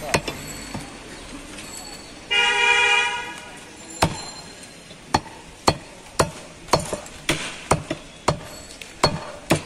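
A butcher's cleaver chopping beef on a wooden stump block, sharp knocks about twice a second from about 4 s in. A vehicle horn honks once for nearly a second, a little over 2 s in.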